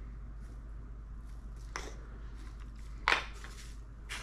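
Handling sounds from spice rub being spooned out and pressed by hand into a raw pork shoulder on a metal sheet pan: soft scuffs and rubs, with a sharper clack about three seconds in. A low steady hum runs underneath.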